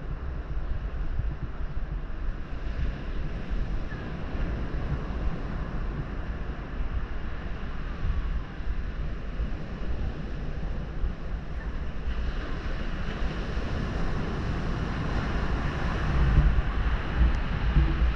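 Wind gusting on the microphone, with the hiss of surf breaking on the beach, which grows louder about two-thirds of the way through.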